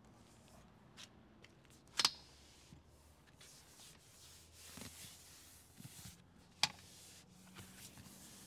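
A few sharp clicks, the loudest about two seconds in with a brief ringing tail, and a stretch of soft rustling: fittings inside a van's cabin being handled and operated.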